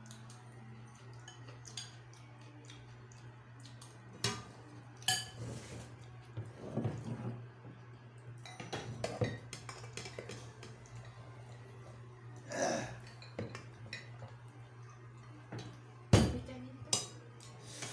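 Spoons and utensils clinking and scraping against plates, bowls and glasses during a meal, with scattered sharp knocks, the loudest about sixteen seconds in, and soda poured from a glass bottle into a glass about eight seconds in. A steady low hum runs underneath.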